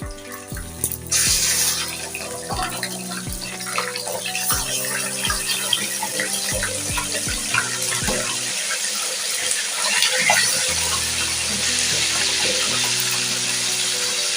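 Chicken pieces frying in hot oil in a karahi: a steady loud sizzle that swells suddenly about a second in, over background music.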